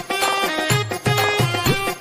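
Background music: a melody over a steady beat of low drum strokes.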